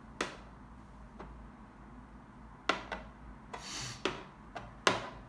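Wooden chess pawns being picked up and set down on a wooden chessboard: about six sharp clicks and knocks, with the loudest near the end, and a short scraping sound about three and a half seconds in.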